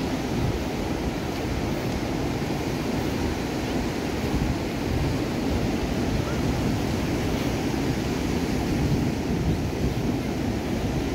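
Ocean surf breaking and washing up onto a sandy beach, a steady rushing wash, with wind on the microphone.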